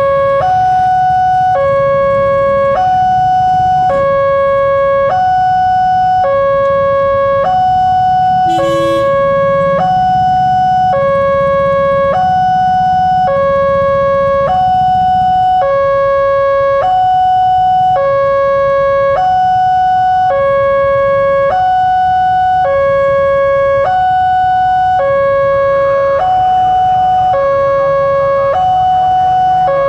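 Nataya Putra (NP) railroad crossing alarm sounding steadily, alternating between a higher and a lower note, each held a little under a second: the warning that a train is due and the barriers are closed. A low rumble of waiting engines sits underneath.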